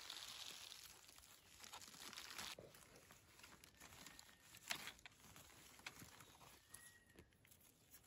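Faint rustling of dry leaf litter and a small knife scraping dirt from the base of a freshly picked wild mushroom, with a few sharp clicks, the loudest nearly five seconds in.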